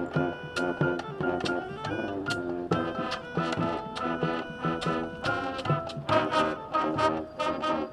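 High school marching band playing its field show: brass chords over sharp percussion hits.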